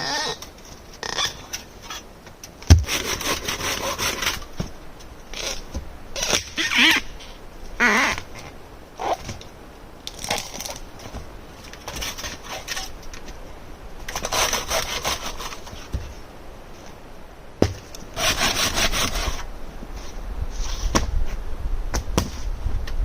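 Irregular bursts of scraping and crunching, each about a second long, with a few sharp knocks between them.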